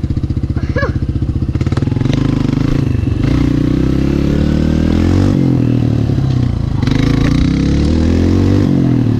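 Yamaha Raptor 125 quad's single-cylinder four-stroke engine ticking over, then revving up and down as it pulls away and rides, its pitch rising and falling several times.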